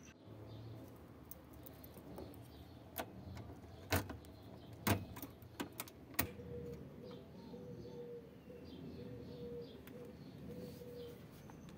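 A handful of sharp clicks and knocks from hands working at the steering column and wheel of a VW Beetle, then a run of faint, short, repeated bird calls.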